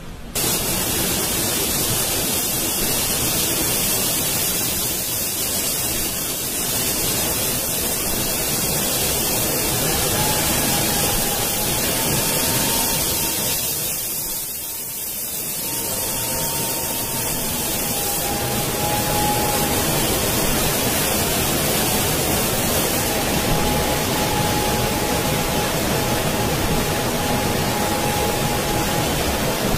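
Steady rushing hiss of a car-body paint booth, with robot arms spraying paint. A faint thin whine comes and goes over it from about ten seconds in.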